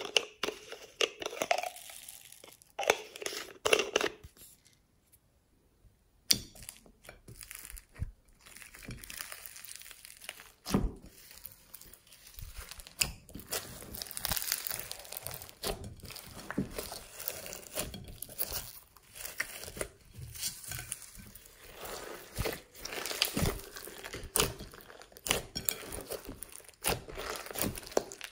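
Fingers squeezing, stretching and pressing glossy slime mixed with foam beads, a steady stream of wet crackles, pops and squelches. A few squelches of foam beads being squeezed from a stress ball come near the start, then a brief gap.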